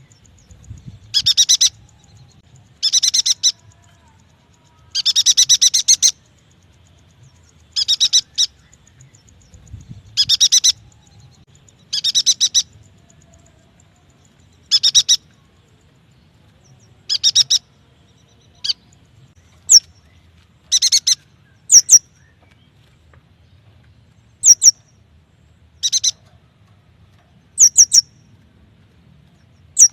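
Yuhina calling: short bursts of rapid high chirps, one every couple of seconds, with quick rising whistled notes mixed in during the second half.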